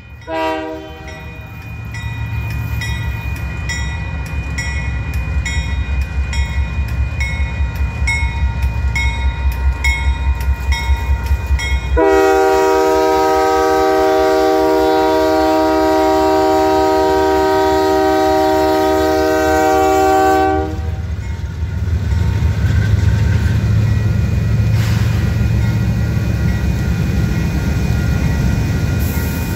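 Union Pacific diesel locomotive at a grade crossing: a short horn toot, then a bell ringing steadily about twice a second over the low rumble of the engines. About twelve seconds in, the locomotive's multi-chime air horn sounds one long blast of roughly eight seconds, after which the diesel engines rumble on as the train rolls.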